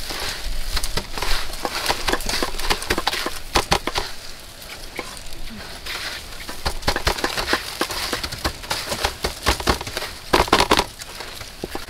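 Dry breadcrumbs crunching and rustling in many small crackles as hands press chicken wings into them on a metal tray, with a louder cluster about ten seconds in.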